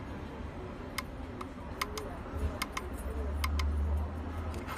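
Sharp, irregular clicks, several a second, from the model-switch button of a phone LCD and touch screen tester being pressed repeatedly to step through the phone models. A low hum runs underneath and swells briefly about three seconds in.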